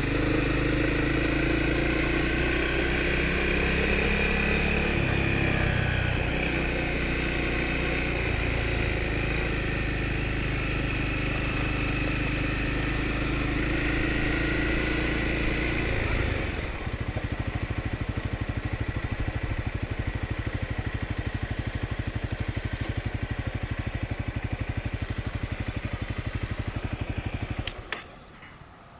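Small single-cylinder Honda dual-sport motorcycle engine running at low speed. About halfway through it settles to an even idle, then it is switched off near the end.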